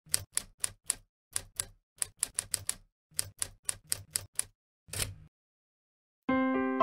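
Manual typewriter keys striking in four quick runs, about seventeen clacks in all, then one longer clack about five seconds in. Soft piano notes come in near the end.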